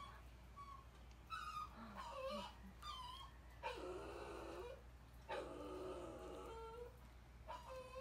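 Puppies whimpering and yipping: a string of short, high-pitched whines, with two longer, rougher calls around the middle.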